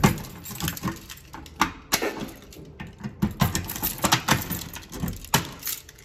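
Irregular sharp clicks and knocks of keys and hand handling at a Notifier manual pull station, with a key being worked at its reset lock.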